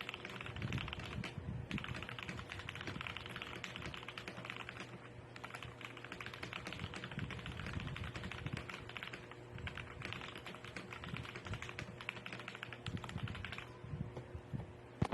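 Fast typing on a mechanical keyboard fitted with Cherry-profile double-shot keycaps: a dense, steady run of key clacks, broken by a few brief pauses.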